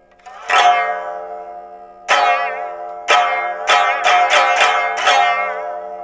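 Biwa (Japanese lute) struck with its plectrum: one strong stroke, two more about a second apart, then a quicker run of five strokes. Each note rings on and fades, with a slight waver in pitch.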